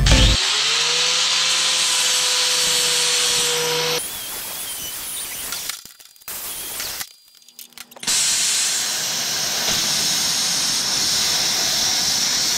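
Small angle grinder with a flap disc spinning up and running steadily for about four seconds, then dying away; from about eight seconds in, a MIG welding arc hisses and crackles steadily.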